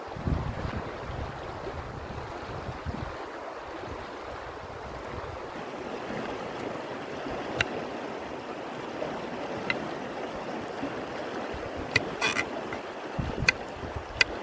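River water rushing steadily, with wind buffeting the microphone at the start. From about halfway, a knife cuts through a carrot onto a wooden cutting board: sharp single taps at first, coming faster near the end.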